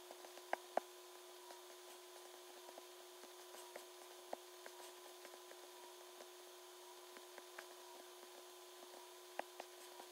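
A few short, sharp clicks from working a computer while ticking options: two close together about half a second in, a few fainter ones, and two more near the end. They sit over a faint, steady hum.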